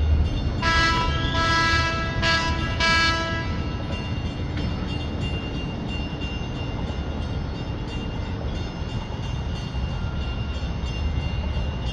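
A loud horn sounds several short blasts in quick succession for about three seconds, then stops, leaving a steady low rumble.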